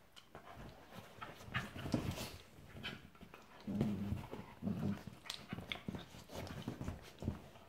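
Two small dogs play-fighting: short low growls and snuffles mixed with the scuffle of paws and bodies on a leather armchair, loudest about two and four seconds in.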